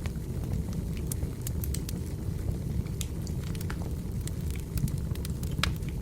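Burning firewood: a low, steady rumble of flame with frequent sharp, irregular crackles and pops.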